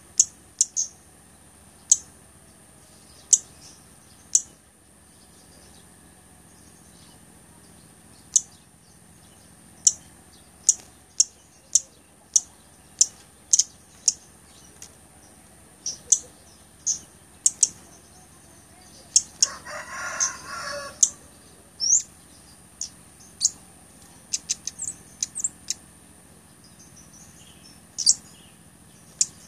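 Blood-breasted flowerpecker (cabai gunung) giving short, sharp, very high-pitched chips, roughly one a second with a few quick clusters. A lower, noisier sound lasts about two seconds around twenty seconds in.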